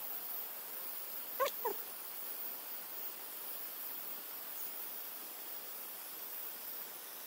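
Steady hiss with a brief two-note animal call about one and a half seconds in, the second note lower.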